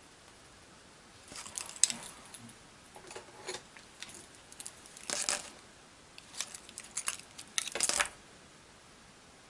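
Coloured pencils being handled: light clicks and clinks of wooden pencils being set down and picked up, in short scattered clusters, with brief scratchy pencil strokes on paper.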